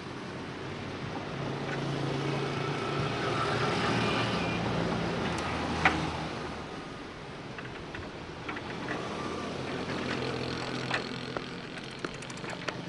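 Street traffic with motorbike engines running and passing, swelling to a peak around four seconds in and easing off after about seven. There is a sharp click about six seconds in and a few lighter clicks near the end.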